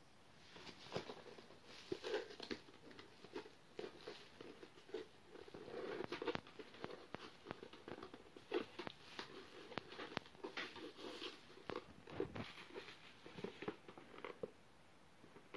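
A hardcover album box being handled and opened: a steady run of rustling, tapping and crackling as cardboard and plastic contents are shifted and slid about on bubble wrap, starting about half a second in and dying down near the end.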